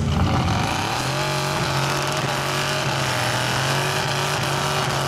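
Mud truck engine revving: the revs climb in the first second, then hold steady at high revs under full throttle in the mud.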